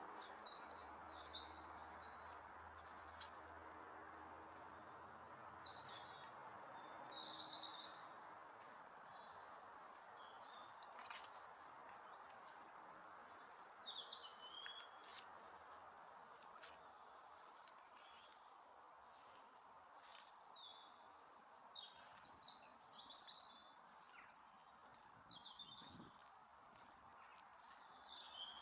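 Quiet countryside ambience: small birds chirping and twittering in short high phrases throughout, over a steady faint hiss. A low hum is heard for the first several seconds, and a few sharp clicks come around the middle.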